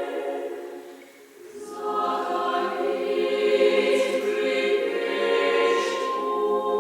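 Chamber choir singing unaccompanied: a phrase fades away in the first second, and after a short breath a new phrase enters about a second and a half in and is held as a full sustained chord.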